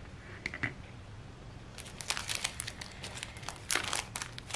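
Clear plastic packaging sleeve crinkling and rustling as it is handled, after a couple of light clicks about half a second in.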